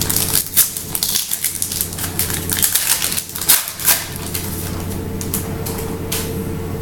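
2016 Donruss Optic baseball cards being shuffled through by hand: a quick run of clicks and slaps of card against card for about the first four seconds, then only a steady low hum.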